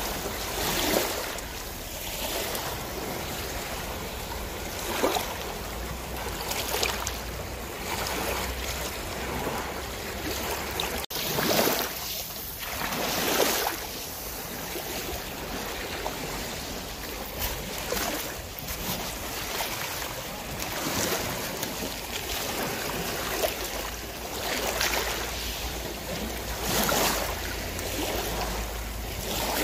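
Sea water splashing and slapping against a slowly cruising boat's hull in irregular swells every second or two, over a steady low rumble of wind on the microphone.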